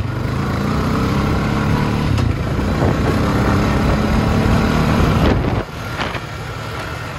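Honda four-wheeler's single-cylinder engine pulling under throttle. About five and a half seconds in it drops suddenly to a quieter, lower running as the throttle eases off.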